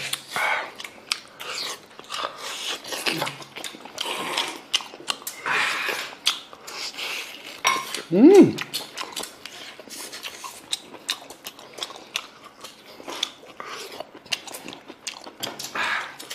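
People chewing and tearing meat off roast lamb legs, with wet smacking and clicking mouth noises. About eight seconds in there is a brief pitched sound that rises and then falls.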